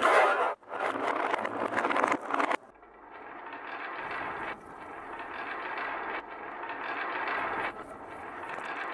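Wooden balls rolling and clattering along a marble run. The rattle is loud and dense until it stops abruptly about two and a half seconds in, then gives way to a quieter steady rolling that steps up and down in level every second or so.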